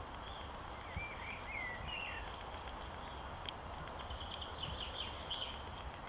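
Small birds twittering in short, wavy chirps about a second in and again in a quick run of notes near the end, over a steady hiss of outdoor background noise.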